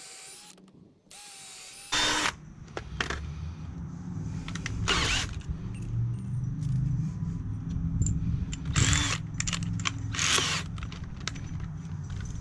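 Power drill driving 2½-inch screws into 2x4 lumber: the drill starts about two seconds in and keeps running, with four louder bursts as the screws are driven home.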